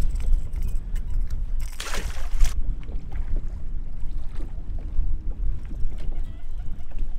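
Wind buffeting the microphone on open water, with small waves lapping at a boat's hull. A brief rush of noise comes about two seconds in.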